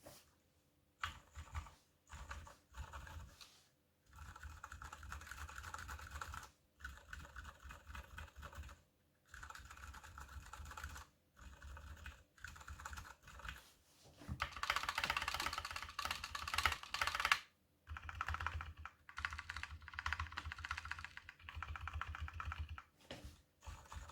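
Typing on a KBD75 mechanical keyboard with Gateron Silent Brown switches, lubed with Krytox 205g0, in a brass plate under PBT DSA keycaps. The keystrokes come in several quick runs with short pauses between them, and the loudest run falls about halfway through.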